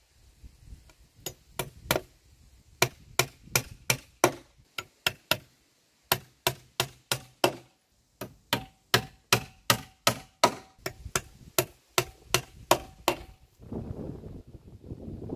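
Claw hammer driving nails through a steel angle bracket into a softwood timber beam: runs of sharp strikes, about five a second, several with a faint metallic ring. Near the end the hammering stops and wind buffets the microphone.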